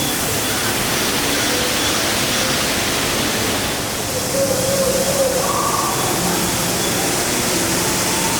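Steady rushing noise, like rain or running water, with faint distant voices mixed in.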